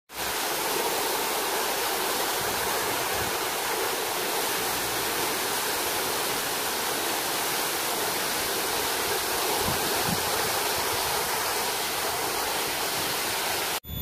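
Steady, even rush of a tall waterfall pouring down a rock face; it cuts off suddenly near the end.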